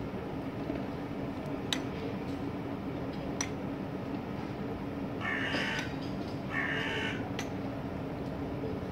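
A crow cawing twice, two harsh calls about a second apart, over a steady low background hum with a few faint ticks.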